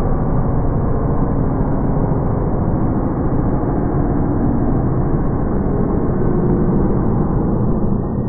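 Milling machine cutting a slot in a 20 mm iron plate: a loud, steady mechanical grinding noise with a low hum underneath.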